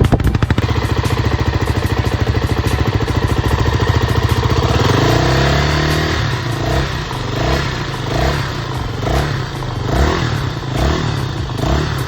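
Honda XR250 Baja's single-cylinder four-stroke engine idling with a fast even beat, then revved about five seconds in and blipped repeatedly, its pitch rising and falling about every second.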